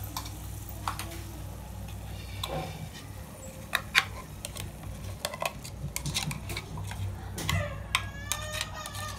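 Scattered clicks and clinks of a spoon and bowl against a metal kadai of simmering vegetables as the ground masala paste is added, over a steady low hum. A brief pitched, wavering sound comes near the end.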